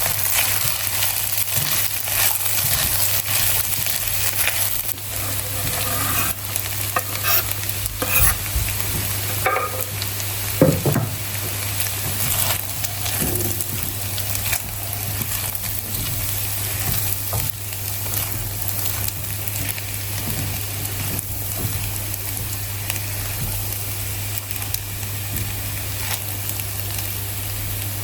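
Chicken fried rice sizzling in a pan as it is stirred, with irregular scrapes and clinks of the utensil against the pan, busier in the first half. A steady low hum runs underneath.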